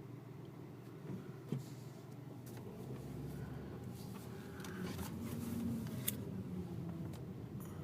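A 2006 Kia Optima V6 running with a steady low hum and scattered ticks and clicks from the engine bay. With the AC on the compressor makes a weird noise, which the owner suspects is the compressor going bad.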